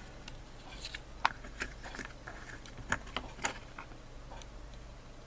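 Scattered light clicks and taps of small hobby parts and a CA glue bottle being handled on a workbench, a handful of sharp ticks in the middle of the stretch.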